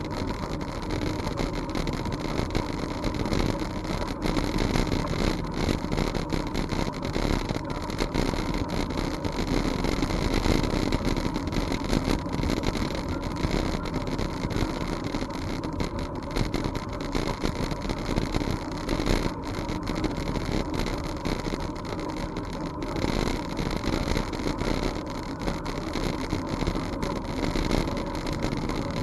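Steady wind buffeting and rolling noise from a bicycle ridden along a trail, a continuous rumble that rises and falls without a break.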